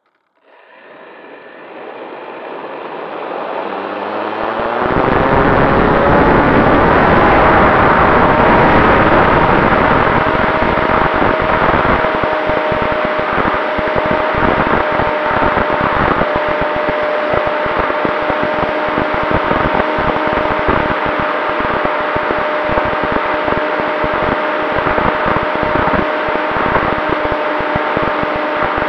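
RC plane's brushless electric motor (Turnigy XP 3536, 1000 kV, on a 4S battery) and propeller spooling up, a whine rising in pitch over the first few seconds as the throttle opens for take-off. It then holds a steady whine under loud rushing airflow and wind buffeting on the onboard camera's microphone as the plane climbs and flies.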